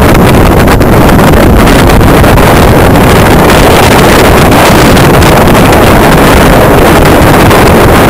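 Strong wind blasting across the camera microphone: a loud, unbroken rumbling rush that overloads the recording.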